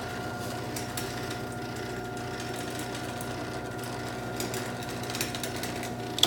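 A LiftMaster garage door opener's motor runs with a steady hum and light rattle, driving the disengaged trolley along the rail so it can reattach to the door. A sharp click comes right at the end.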